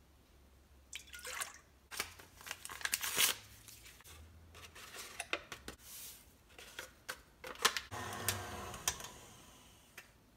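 Milk poured into a stainless-steel mixer bowl, then paper packets of whipped-topping mix torn and shaken out into it, with scattered clicks and rustling. Near the end a KitchenAid stand mixer runs briefly with a steady hum, whipping the cream.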